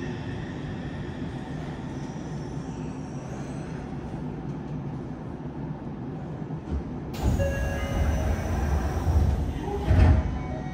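Inside a Yokohama subway Blue Line 3000R car with Mitsubishi IGBT-VVVF drive, the train rolls to a stop with a steady rumble and a faint falling inverter whine. About seven seconds in, the passenger doors slide open, louder, with a few short tones, and a thump near the end.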